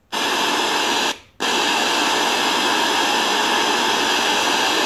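Portable mini Bluetooth speaker in FM radio mode giving out loud, steady untuned radio static. The hiss cuts out briefly about a second in, then comes back.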